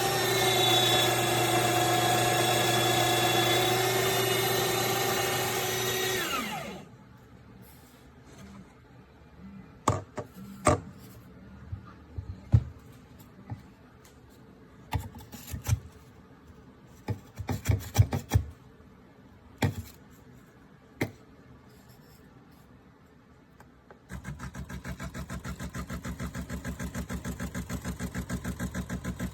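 Espresso machine's built-in burr grinder motor running with a steady whine, then winding down and stopping about six seconds in. Scattered knocks and clicks follow. About 24 seconds in, the machine's pump starts with a steady, rapid pulsing hum.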